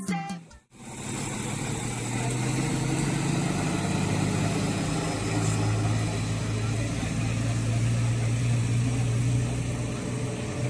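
A truck engine idling steadily, coming in after a brief snatch of music cuts off in the first second.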